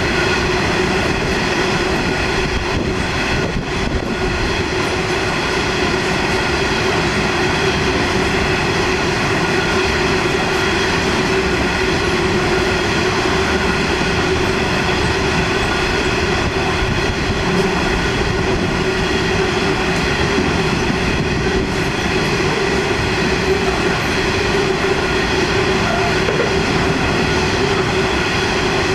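Coal train hopper wagons rolling past: a steady rumble of wheels on rail, with a continuous droning, whining tone over it.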